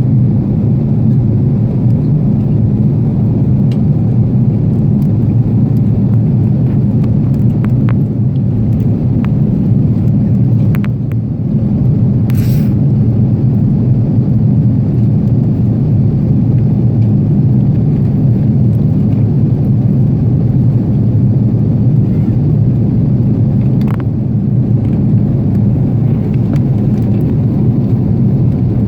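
Steady low rumble of cabin noise inside an Airbus A330 airliner, with a brief hiss about twelve seconds in and a few faint clicks.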